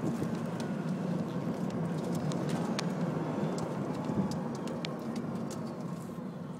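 Wind rushing over the microphone and road noise from a Tesla Roadster electric sports car driving with its top down, a steady low rush.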